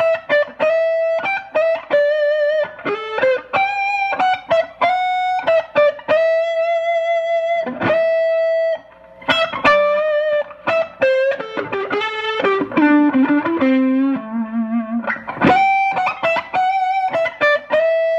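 Electric guitar playing a single-note lead line, a Collings City Limits Les Paul-style guitar into a Fender amp through a compressor, King of Tone boost and Silver Mod Tube Screamer with only light overdrive. Held notes with vibrato and slides into notes, and a quick descending run to low notes about twelve seconds in before climbing back up.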